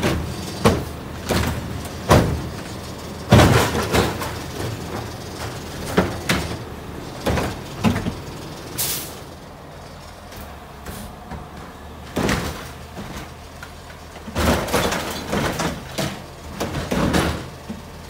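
Front-loading garbage truck's Curotto-Can automated arm grabbing, tipping and setting down trash carts: a string of loud clanks and bangs over the steadily running truck engine, with a short air-brake hiss about nine seconds in.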